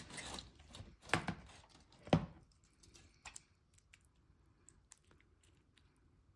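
Crisp rustling and crunching of salad being spooned and pressed onto the sandwich bread, with two louder crunches in the first couple of seconds, then only scattered light clicks and taps.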